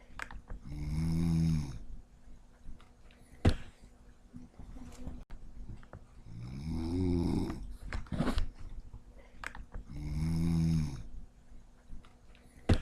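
Snoring: three long, heavy snores a few seconds apart, with a few sharp clicks between them.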